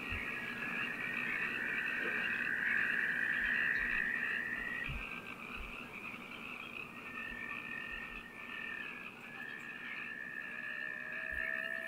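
A steady, high-pitched chorus of frog croaks. A faint rising tone joins near the end.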